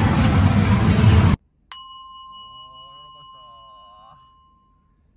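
Loud din of a pachislot hall with machine music that cuts off abruptly, followed by a single struck bell that rings and fades away over about three seconds. The bell is the comic 'chiin' used to mark a heavy loss.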